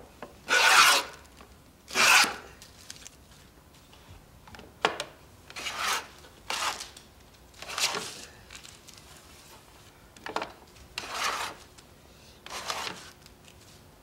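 Japanese plow plane (motoichi-jakuri-ganna) with a fence, cutting a groove along a wooden board in repeated push strokes. There are about ten scraping strokes; the first two are the loudest, and the rest are shorter and lighter.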